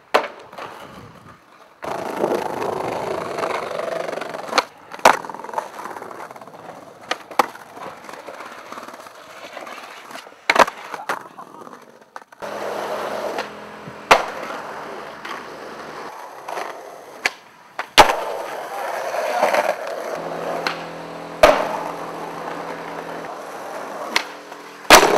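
Skateboard wheels rolling on concrete, broken by sharp cracks of the board popping and landing, about eight in all at intervals of a few seconds.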